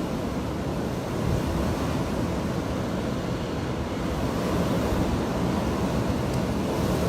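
Steady rushing storm noise with a heavy low rumble and no distinct events, from the gale of Storm Eunice.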